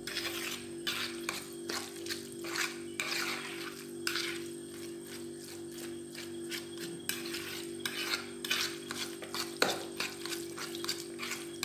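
Metal fork stirring and scraping through a moist mashed cauliflower mixture in a plastic bowl, in repeated irregular strokes about two a second.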